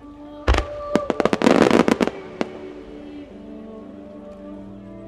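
Aerial fireworks bursting. A sharp bang comes about half a second in, then a quick run of many bangs over the next two seconds, over music with sustained tones.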